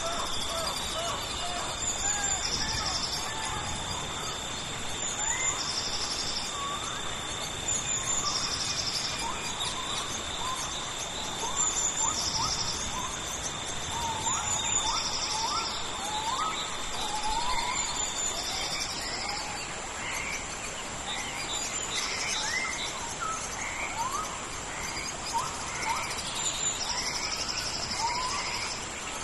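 Tropical rainforest ambience: a steady hiss of rain under many birds calling in short rising notes, with insects droning and chirping. A high, steady insect drone stops about two-thirds of the way through, while a pulsed insect call repeats every two to three seconds.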